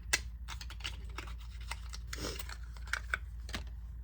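Irregular light clicks and taps of a small cosmetic package being handled and opened, with a brief rustle in the middle.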